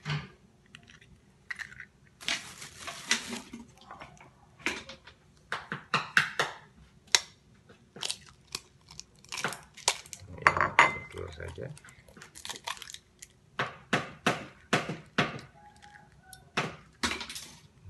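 Eggs being cracked and their shells pulled apart over a bowl: an irregular run of sharp taps, clicks and crunches.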